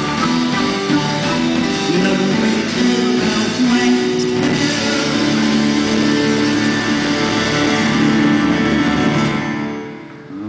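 Live rock band playing an instrumental passage: guitars, bass guitar and drum kit, with a flute. The music drops away briefly near the end.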